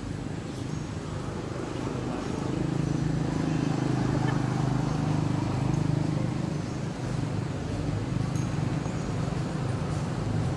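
A steady low engine hum, swelling louder about two and a half seconds in and holding.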